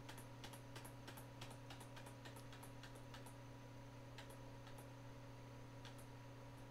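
Faint clicks of computer keyboard keys, pressed in quick succession for about the first three seconds, then a few single presses, over a steady low hum.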